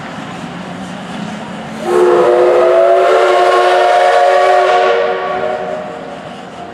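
D51 498 steam locomotive's whistle blows one long chord of several tones about two seconds in, holds for about three seconds and then fades away, over the running noise of the moving train.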